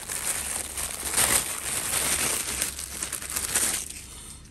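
Clear plastic wrapping crinkling and rustling as it is handled and a weighted training vest is pulled out of it. The rustling dies down shortly before the end.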